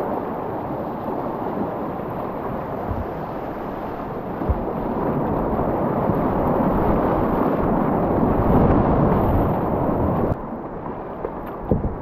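Steady rush of creek whitewater around a kayak running a class II–III rapid, heard close up from a GoPro mounted on the boat, with a few dull knocks. About ten seconds in, the sound drops abruptly to a softer river flow.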